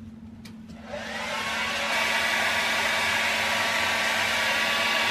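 Handheld hair dryer switching on about a second in, its motor spinning up with a rising whine, then blowing steadily.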